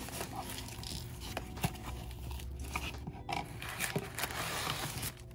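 Cardboard box flaps being pulled open and blue plastic air-cushion packing crinkling, with scattered small clicks and rustles.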